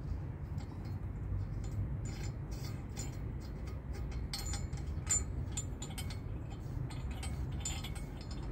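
Irregular light metallic clicks and clinks of hand work on the propeller anode as it is fitted onto the prop hub, over a steady low rumble.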